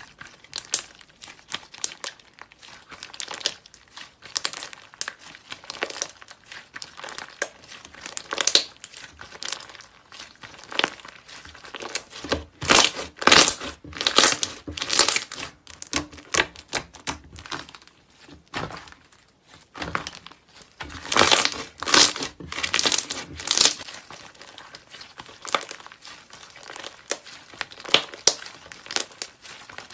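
Thick white slime worked by hand, stretched, folded and squeezed, giving dense irregular crackling and popping. The crackling grows louder in spells about halfway through and again about two-thirds of the way in.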